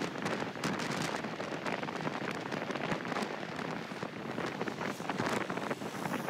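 Wind buffeting the microphone on a moving vehicle: a steady rushing noise broken by many short, sharp gusts.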